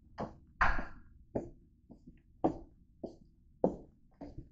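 Footsteps in rubber slide sandals on a hard plank floor: about seven sharp slaps at a walking pace, the sandals smacking against the heels and the floor.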